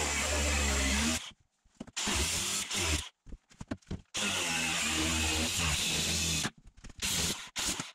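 Cordless angle grinder cutting through the bus's metal body panel, run in starts and stops: about a second of grinding, a pause, another second, a longer run of about two and a half seconds, then a few short blips near the end. The motor's whine winds up at each start and falls away as it stops.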